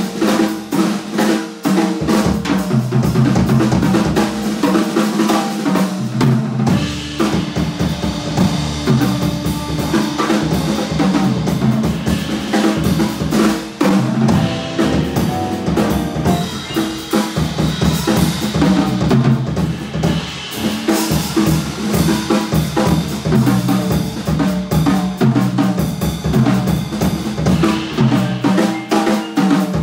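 Jazz drum kit solo: fast, dense strokes on snare, toms and bass drum with cymbals, played live in a room.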